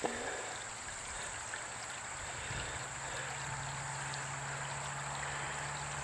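Steady rush of a flowing stream, with a low steady hum coming in about two and a half seconds in.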